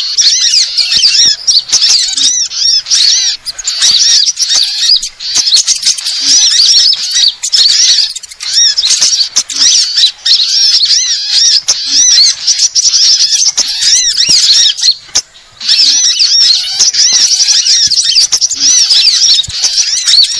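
Dense, continuous twittering and chirping of many small songbirds at once: a bird-luring (pikat) call recording made to draw small birds in. It drops out briefly about 15 seconds in.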